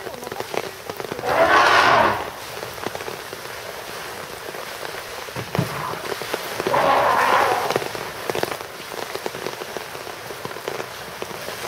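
African elephant thrashing in a pool, churning and splashing the water, with two louder surges of splashing, about a second and a half in and about seven seconds in, over steady rain.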